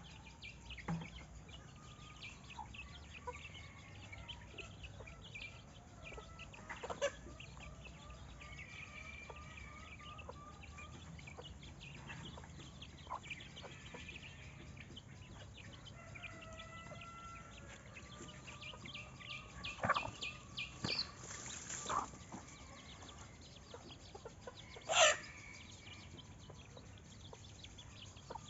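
Chickens clucking, with a few louder sharp calls about two-thirds of the way in and near the end, over a background of small birds chirping.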